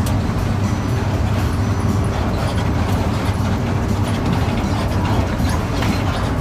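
A Mercedes-Benz XBC-series bus's four-cylinder engine running under way: a steady low rumble mixed with road noise, heard from inside the bus, with light scattered rattles.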